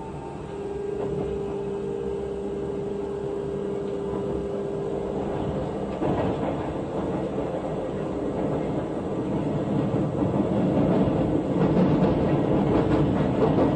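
Busan Subway Line 1 train running on the track: a steady motor tone fades out, and from about six seconds in the rumble of wheels on rail grows steadily louder as the train gathers speed.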